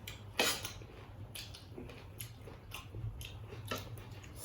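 Eating sounds: chewing, with a few short clicks scattered through, the loudest about half a second in.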